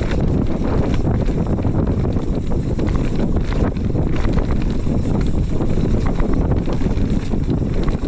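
Wind buffeting the microphone as a mountain bike descends a rough dirt and rock trail at speed, with the tyres rumbling over the ground and the bike giving many small rapid knocks and rattles.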